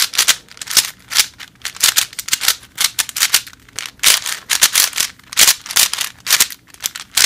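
Cyclone Boys stickerless 4x4 speed cube being turned quickly by hand: an irregular run of plastic clicks and clacks, several a second, as the layers snap round. The turning is a little blocky and catching, in the cuber's words.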